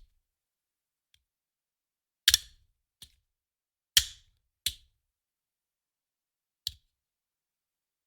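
A handgun magazine thrown down, landing with sharp clacks that die away quickly. There are about five hits, separated by silence, and the loudest come about two and four seconds in.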